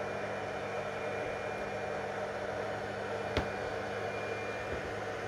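Anycubic Kobra Max 3D printer running mid-print: a steady whir of its cooling fans with a low hum. A single sharp click about three and a half seconds in.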